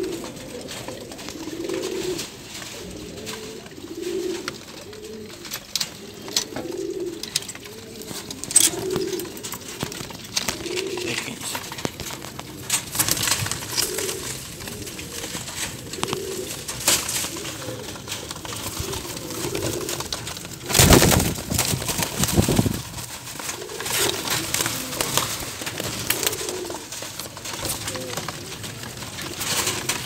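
Caged young domestic pigeons cooing, a low coo about every second or so, with scattered light clicks. About two-thirds of the way through, a loud noisy burst lasts about two seconds.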